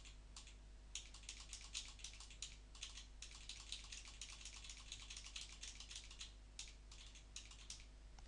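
Computer keyboard typing: a faint run of quick, irregular keystrokes, over a low steady hum.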